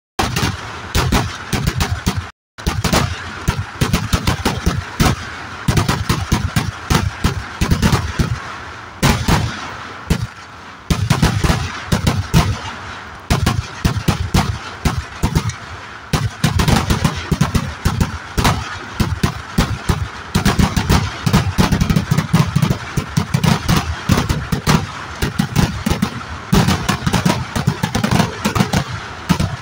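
Firecracker barrage (eeduvedi) of a Kerala temple festival: a continuous string of sharp bangs going off many times a second. There is a brief break about two seconds in.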